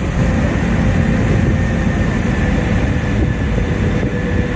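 Tour boat's engine running steadily, with a constant heavy rush of wind and water over it and a faint steady hum.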